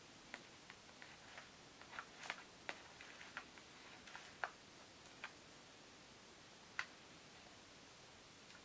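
Faint, irregular clicks and ticks of fingers handling a plastic AGFA compact cassette shell: about a dozen small taps in the first five seconds, then one more a couple of seconds later.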